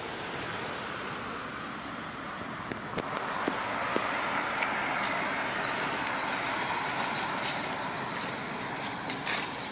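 Road-traffic noise: a vehicle's hum swelling a little and easing off, with a few light footsteps on leaf-covered railway ties.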